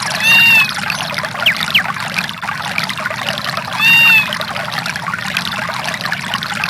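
A Samsung SGH-D480 nature-sounds ringtone: a steady rush of running water, with a short rising-and-falling call about half a second in and again about four seconds in.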